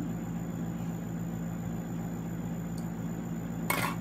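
Steady low hum with hiss, with one brief sharp noise near the end.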